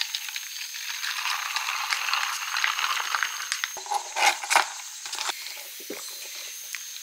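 Ice cubes crackling in a plastic cup of iced coffee with a steady fizzing hiss, then a few sharp plastic clicks and rattles about four to five seconds in as a lid and straw go onto the cup.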